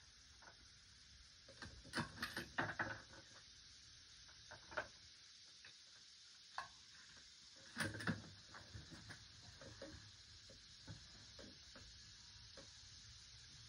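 Faint scattered clicks and light clatter, bunched about two seconds in and again about eight seconds in, over a steady low hiss.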